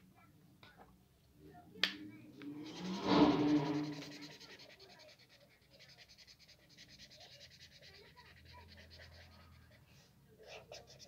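Felt-tip marker scribbling on squared paper, a faint steady scratching as a drawing is coloured in, starting about five seconds in. Before it, a click and a short, louder breathy noise about three seconds in.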